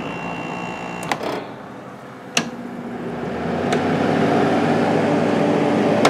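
A 5,000 BTU Kool King window air conditioner is being shut down at its rotary selector knob. The knob clicks sharply a few times, and the unit's running hum changes with the clicks: it drops after the first click, then builds up again after the second.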